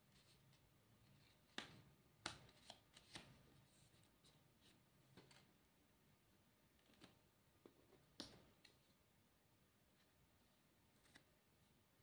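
Paper and card pieces handled and pressed onto a paper plate by fingers: faint, scattered taps and short paper rustles, a cluster of them about two to three seconds in and a sharper tap about eight seconds in.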